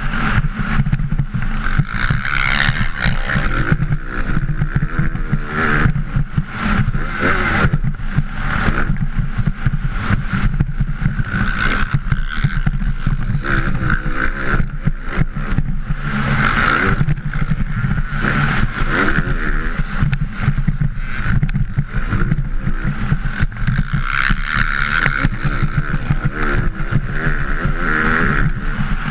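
Motocross bike engine revving hard and falling back again and again as the rider accelerates, shifts and brakes through the track's turns, with wind and bump noise buffeting the helmet-mounted camera.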